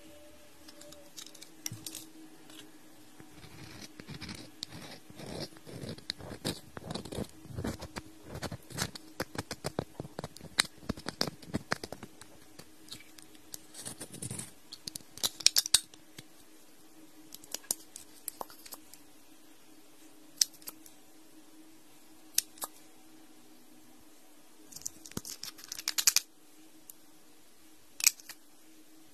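A thin stick scraping and picking dark crumbly residue out of a small round plastic case, a run of quick clicks and scratches. Louder gritty scrapes come twice, about midway and near the end, over a faint steady hum.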